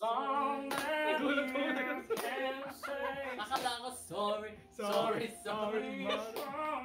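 A man singing a song a cappella, unaccompanied, in a few phrases with short breaks between them.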